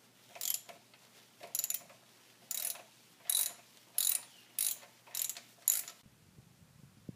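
Ratchet wrench clicking in about eight short runs, one for each back-swing of the handle, as a socket turns out a clutch slave cylinder mounting bolt.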